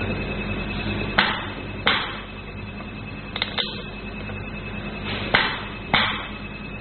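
Six sharp clicks in three pairs, fingertips tapping on the plastic handpiece connector sockets of an IPL machine's front panel, over a steady electrical hum with a thin high tone.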